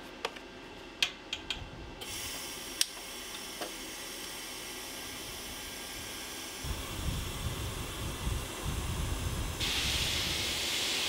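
A few light metal clicks and knocks as the handrail is set against the steel wall, then an electric arc welder tack-welding it to the wall. The arc gives a steady hiss with crackling, and it grows louder near the end.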